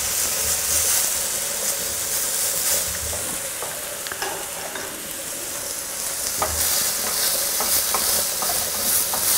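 Hake burgers and shredded cabbage sizzling in hot oil in two pans, a steady hiss that eases a little in the middle and picks up again, with a few light clicks of utensils.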